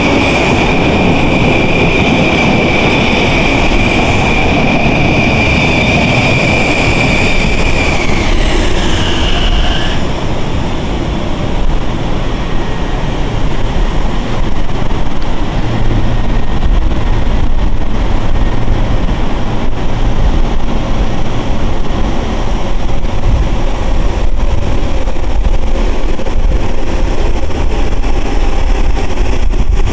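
Kawasaki M9 electric multiple-unit train moving through the station, its traction equipment giving a high steady electric whine that slides down in pitch and fades about eight to ten seconds in. The wheels then rumble on the rails, getting louder as the cars roll past.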